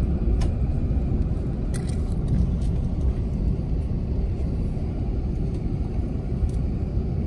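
Airbus A380 cabin noise while taxiing after landing: a steady low rumble of the rolling aircraft, heard from inside the cabin, with a few faint clicks.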